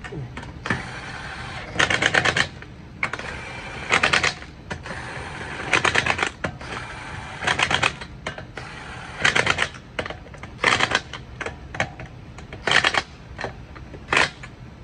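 Impact wrench on its low setting running lug nuts onto a truck wheel. It whirs as each nut spins down, then gives a short hammering rattle as the nut seats: about eight bursts, one every one and a half to two seconds.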